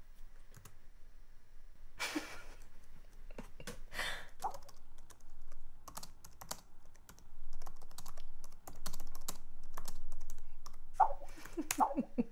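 Fingers typing on a laptop keyboard: quick, irregular key clicks coming in flurries.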